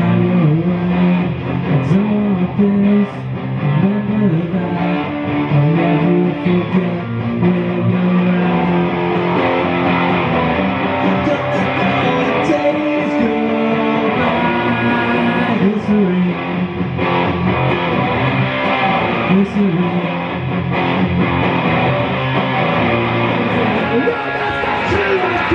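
Electric guitar strummed through an amplifier, playing chords of a rock song.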